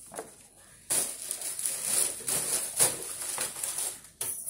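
Irregular rustling and crinkling handling noise, like crumpled packaging or something rubbed close to the microphone. It starts about a second in and stops shortly before the end.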